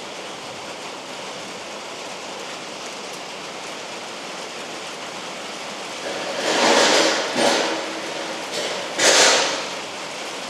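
Steady rain falling. In the second half, three or four loud, short rushing noises come one after another, the loudest near the end.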